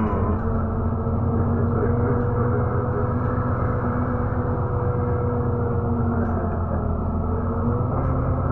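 Steady low drone of a moving road vehicle heard from inside its cabin: engine and road noise, with a constant hum whose pitch dips briefly near the end.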